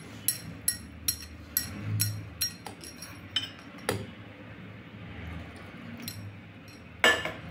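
A metal spoon clinking and scraping against a mixing bowl while thick flour batter is stirred, sharp clinks two or three times a second, then a few quieter seconds and one louder knock near the end.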